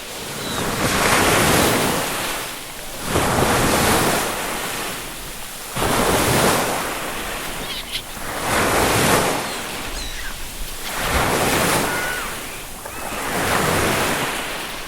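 Ocean waves breaking and washing in, swelling and falling about every two and a half seconds. A few faint, brief seagull calls sound between the surges.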